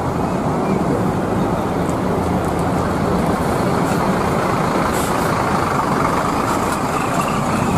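Sinar Jaya intercity coach's diesel engine running as the bus drives slowly past at close range, a loud steady rumble, with a brief hiss about five seconds in.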